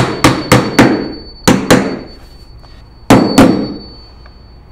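Claw hammer driving finishing nails into a wooden stair nosing: a quick run of four blows, a pair about a second and a half in, and another pair about three seconds in, with a thin ring between blows.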